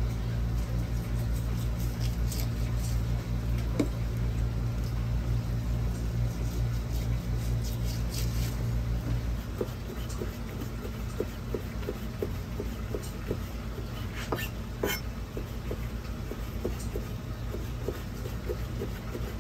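Kitchen knife chopping raw rockfish flesh on a plastic cutting board: even taps about two to three a second from about halfway in, under a steady low hum.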